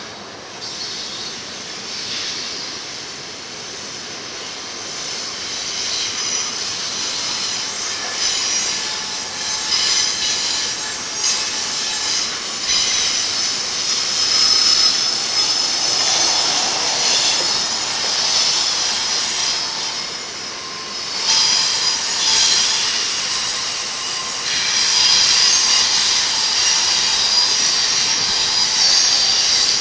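Double-stack container cars of a BNSF intermodal train rolling downgrade through a curve, their wheels squealing against the rails in several steady high-pitched tones that fade and return. The squeal grows louder over the last few seconds.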